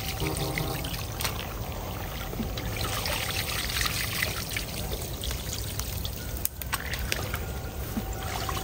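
Shallow muddy water splashing, sloshing and trickling as a woven basket is scooped through a drained puddle and water pours back out of it, with many small wet splashes and clicks.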